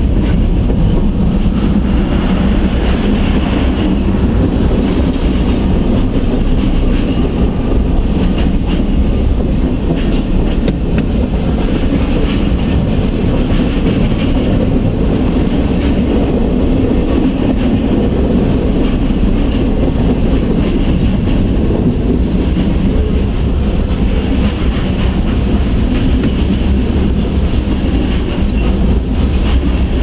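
Freight train's boxcars, covered hoppers and tank cars rolling past, a steady rumble of steel wheels on rail with scattered clicks, heard from inside a car.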